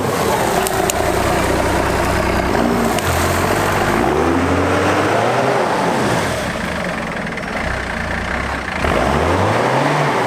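First-generation Dodge Ram's 5.9-litre 12-valve Cummins inline-six diesel revving and easing off in repeated swells under load as the truck pulls through mud. The engine goes quieter for a couple of seconds past the middle, then revs up again near the end.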